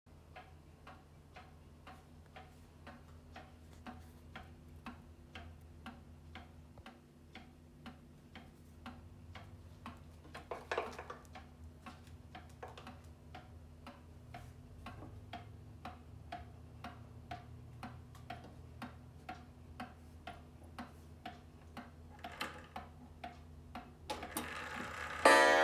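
Antique Waterbury pendulum wall clock ticking steadily. There is a brief handling noise about eleven seconds in as the minute hand is turned. Right at the end the hammer strikes the coil gong with a loud ringing note.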